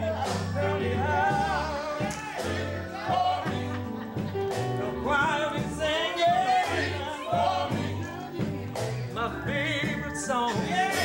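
Gospel quartet singing live, male voices over a band of keyboard and electric guitar, with a moving bass line and drum hits.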